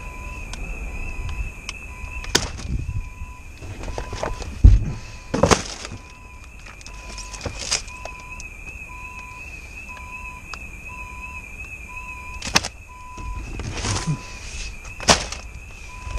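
An alarm sounding steadily: a warbling high tone with a lower beep about once a second, which is suspected to have been set off by mice. Over it come rustling and sharp knocks of magazines and cardboard being shifted in a bin, the loudest a pair of thuds about five seconds in.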